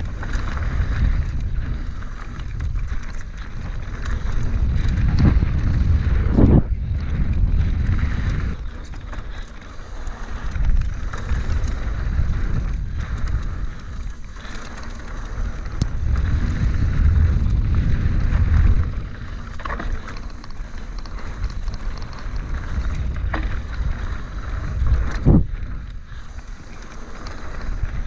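Wind buffeting an action-camera microphone and mountain-bike tyres rolling over a dirt trail, the rumble swelling and fading with speed. A couple of sharp knocks from the bike on bumps, about six seconds in and near the end.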